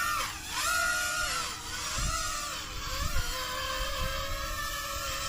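Small quadcopter toy drone's motors and propellers whining, the pitch rising and falling as the throttle changes. Wind buffets the microphone with low rumbles.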